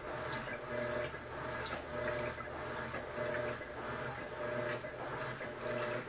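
Electrolux Turbo Economia LTD11 top-load washing machine agitating, most likely in its turbo profile: water and a heavy bedspread churn in the tub, with a faint motor hum that swells at each quick, even stroke of the agitator. Very quiet for a washer.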